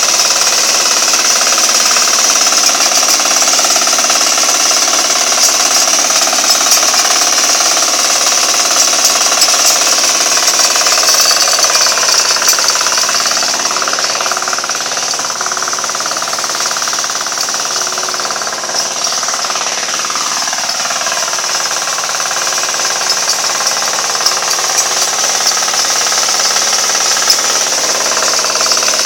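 Two-wheel hand tractor's engine running steadily under load as it ploughs through brushy soil, a little quieter for a while in the middle.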